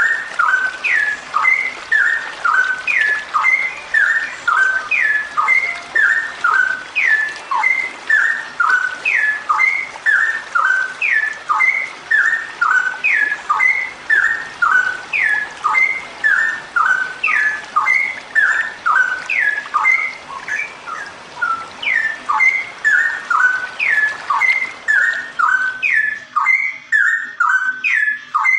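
Straw-headed bulbul (cucak rowo), given as a female, singing a long unbroken run of quick whistled notes at a steady pace, several a second: the continuous rapid-fire song that keepers call 'ropelan'.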